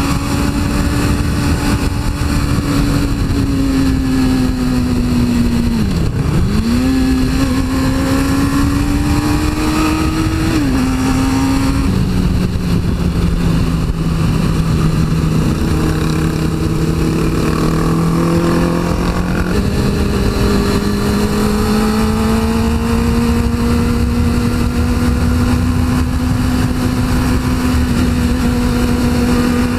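2002 Suzuki GSX-R 600's inline-four engine running under way, heard over heavy wind rush. The revs dip sharply and recover about six seconds in, fall to a lower steady note about twelve seconds in, and climb again about twenty seconds in, then rise slowly.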